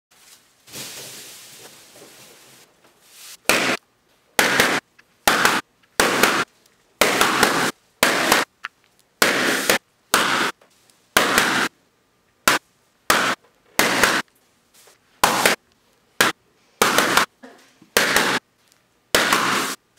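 Latex balloons bursting one after another: well over a dozen loud, sharp pops, roughly one a second, starting about three seconds in.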